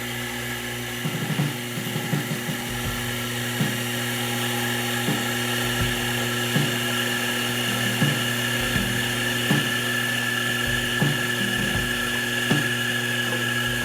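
Sherline Accu-Pro CNC lathe running under power on a turning pass, its spindle giving a steady high whine. A light tick comes about every second and a half. In constant-surface-speed mode the spindle slows as the tool moves out to the larger diameter.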